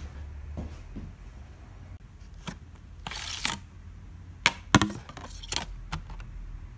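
Handling a 4x5-inch large-format camera and its sheet-film holder: a short sliding scrape about three seconds in, then a quick cluster of sharp clicks and knocks. A low hum runs underneath.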